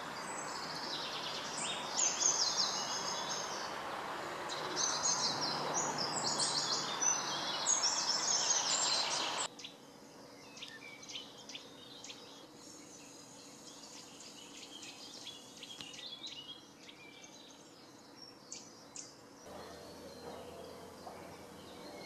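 Songbirds singing and chirping over a steady rushing outdoor background noise. About nine seconds in, the rushing drops away abruptly, leaving a quieter background with sparser bird chirps.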